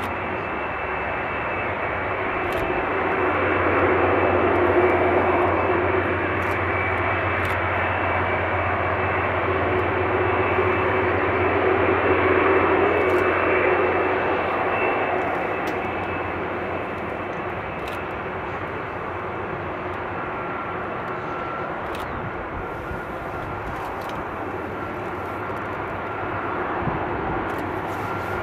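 Boeing 747-400 freighter's four turbofan engines running at taxi power as it rolls past: a steady jet roar with a high whine, swelling twice and then easing off.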